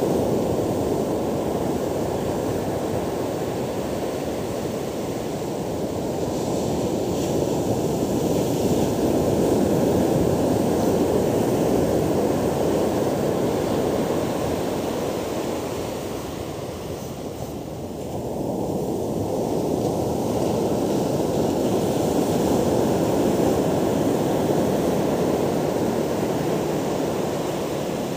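Rough surf breaking and washing up a sandy beach: a continuous rushing roar that swells and eases with the waves, dipping briefly a little past the middle.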